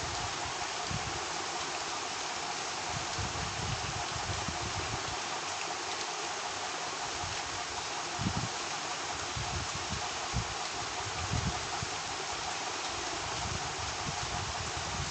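A steady, even hiss, with soft low thuds now and then.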